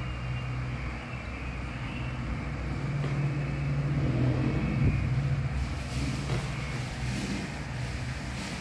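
A Siamese cat purring, a low steady rumble that swells about three to five seconds in. From about halfway there is also a soft rustle of a hand rubbing fur.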